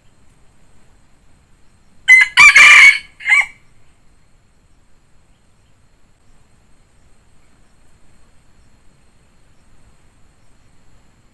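Red junglefowl rooster crowing once, about two seconds in: a short, loud crow that ends in a brief, clipped final note.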